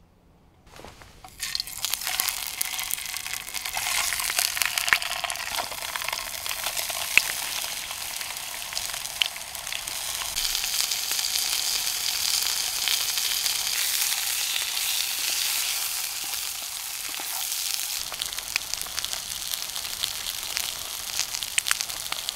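Sausages and eggs sizzling in a frying pan: a steady hiss with scattered sharp pops, starting about a second in.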